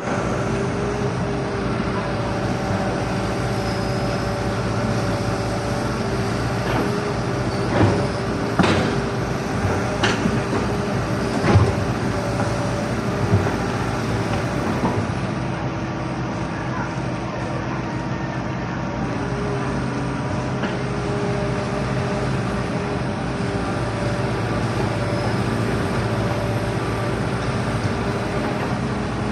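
Heavy construction machine's diesel engine running steadily, with several sharp metallic knocks about a third of the way in.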